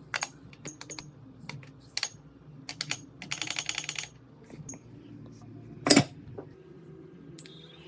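Small hard clicks and taps of metal tools and phone parts being handled, with a quick run of rapid clicks about halfway through and one louder click near the end.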